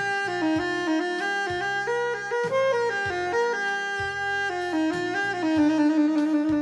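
Instrumental music: a lead melody moving in short steps over a backing track with a bass line, the lead settling into a long held note near the end.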